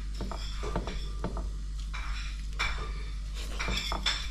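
Light clinking and clattering of steel plates, bowls and spoons as people serve and eat at a table, in scattered short clinks, over a steady low hum.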